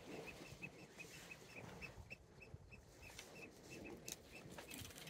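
Near silence: faint outdoor background with a steady run of faint, short high pips, about five a second, and a few light clicks near the end.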